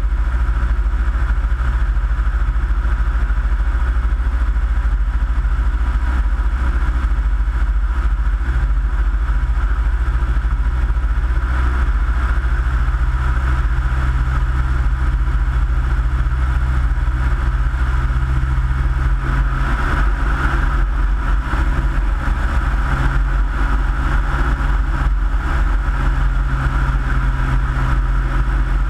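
Minimax ultralight aircraft's engine and propeller running steadily in level flight, the engine note firming slightly about halfway through.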